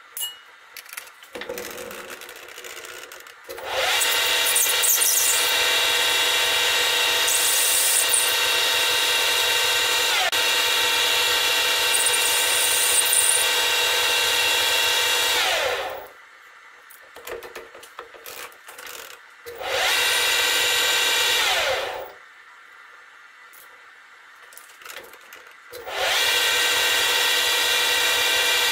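Small metal lathe running, its motor and gearing giving a steady whine as it turns a rod held in a three-jaw chuck. It runs for about twelve seconds, then spins down with the pitch falling. It is started again twice for a few seconds each, with light clinks of handling in the pauses.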